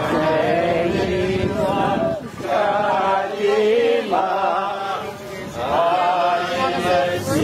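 A crowd of voices chanting in unison, in repeated phrases about two seconds long with short breaks between them.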